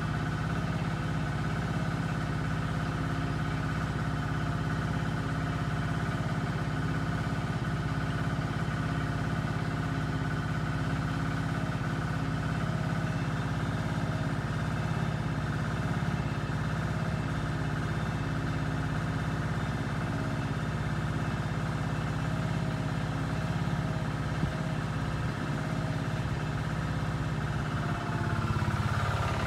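Small engine running steadily at one constant speed, an even hum that doesn't change.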